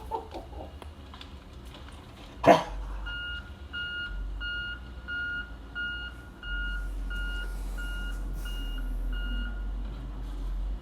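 A single loud sharp thump, then a work vehicle's reversing beeper sounding about twice a second for several seconds over a low engine rumble.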